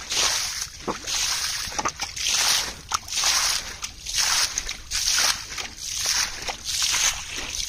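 Hands sloshing and splashing through shallow muddy pond water, groping in the mud for fish, in uneven splashes a little more than one a second.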